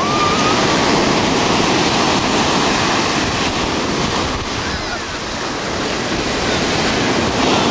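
Ocean surf breaking in the shallows: a steady, loud rush of water.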